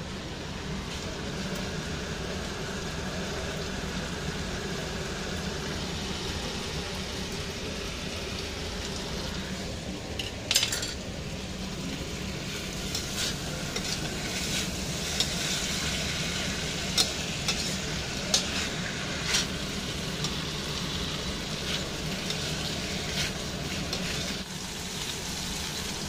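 Chicken wings and diced bell peppers sizzling in a stainless steel wok while a metal spatula stirs and scrapes. Sharp clinks of the spatula on the wok come about ten seconds in and several more times later on. Near the end the sound switches to whole fish frying in oil.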